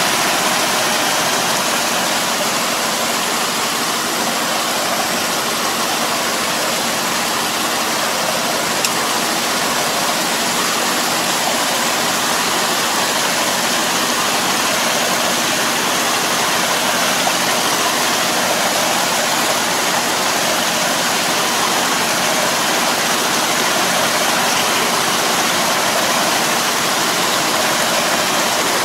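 Tractor pulling a rotary drive harrow through a flooded rice paddy: a steady rush of churned water and mud, with the tractor engine running underneath.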